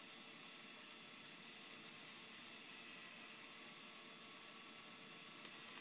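A Lego Power Functions electric motor whirs steadily through the Technic gearing as it drives the container arm down, then cuts off suddenly.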